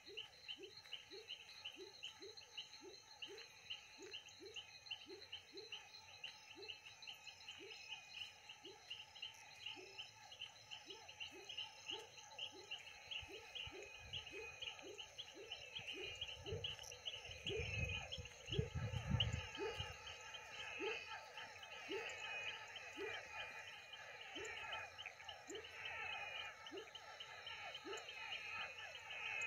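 Night chorus of frogs at a pond: one frog calls in a steady series of short falling notes about two a second, over a dense chorus of quicker high-pitched frog and insect calls. A low rumble rises and fades midway.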